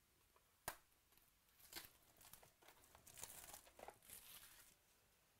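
Faint tearing and crinkling of a baseball card box's cardboard and paper being ripped open, in several short rustling patches, with one sharp click about a second in.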